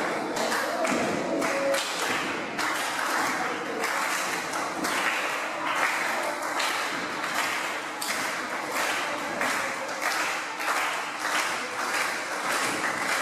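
Wrestling crowd clapping a few times a second, with voices shouting and talking among the claps.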